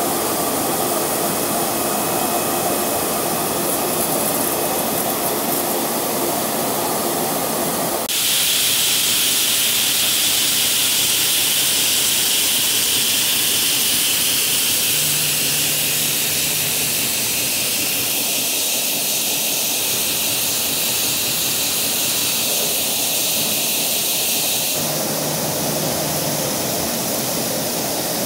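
High-speed rotary cap assembly machine running: a steady mechanical running noise with a strong hiss. The mix of the noise changes abruptly about eight seconds in and again about three seconds before the end.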